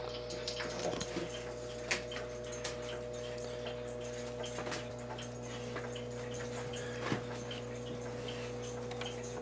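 Webster Chicago model 80-1 wire recorder playing the unrecorded stretch of a wire reel: a low steady hum with a faint steady whine over it, and scattered small clicks and crackles.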